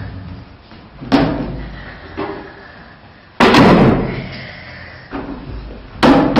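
A door banging: three loud, separate thuds a couple of seconds apart, each dying away, the middle one the loudest.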